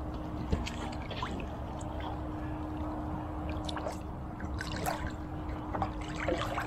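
Pool water lapping and trickling softly against an inflatable float, with scattered small clicks and a steady low hum.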